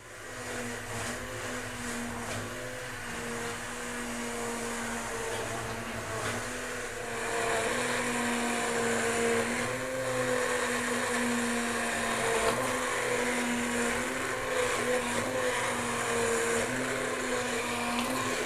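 Hand-held immersion blender running steadily in a pot of cooked leek and potato soup, puréeing the soft vegetables. A steady motor hum that gets a little louder about seven seconds in and cuts off at the end.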